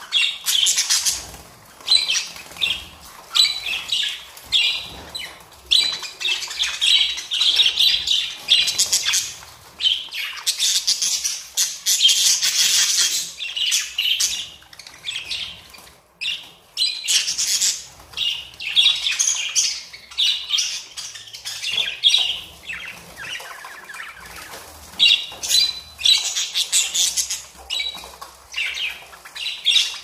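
A crowd of budgerigars packed in a carrier crate calling all at once: a loud, dense chatter of high-pitched chirps and screeches that swells and dips in waves.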